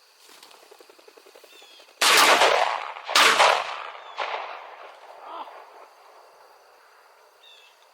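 Three shotgun shots about a second apart at a flushed pheasant, the third quieter, each with a short echoing tail.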